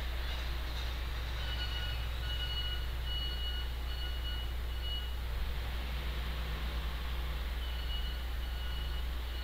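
Steady low electrical hum and hiss, with a faint high-pitched whine that comes in about a second and a half in, drops out midway and returns near the end.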